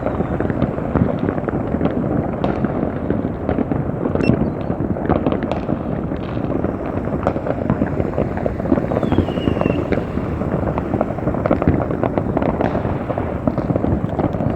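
Many fireworks going off at once in a dense, unbroken barrage of bangs and crackles.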